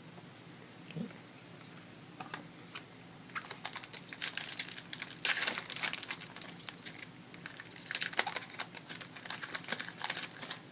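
Crinkling of a trading card pack wrapper and cards being handled: a few faint clicks, then from about three seconds in a dense run of quick, irregular crackles.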